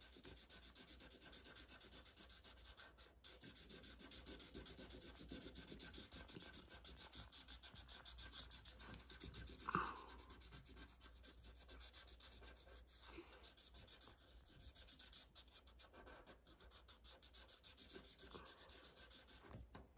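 Black Sharpie marker scribbling quickly back and forth on paper, colouring in a small filled shape, with faint rapid strokes. One brief louder sound comes about halfway through.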